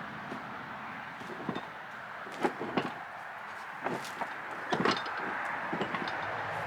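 A handful of sharp, irregular knocks and clanks from working on an old wooden sawmill carriage and its bolted hardware, over a steady background hiss.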